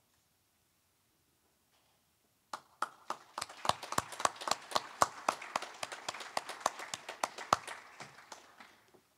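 A small group of people clapping, starting about two and a half seconds in. The individual claps stand out clearly, and the applause fades out near the end.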